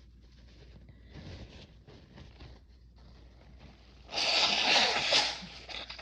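A person blowing her nose hard: about four seconds in, one forceful blast of air through the nose lasting over a second, followed by a couple of short, smaller puffs. The nose is running after sneezing fits set off by chhinkni snuff.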